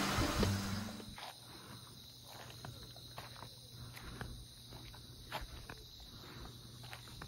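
Background music fades out in the first second, then quiet night ambience of crickets chirping: a steady high trill over a low, even hum.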